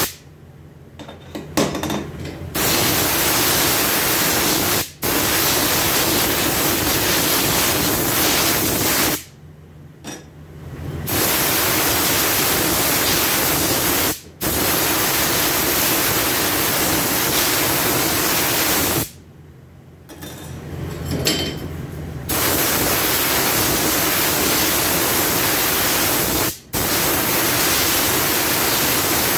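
Compressed-air spray gun blasting a cleaning spray onto automatic transmission parts: a loud, steady hiss in long bursts, cut by three pauses of two to three seconds and a few brief breaks as the trigger is let go.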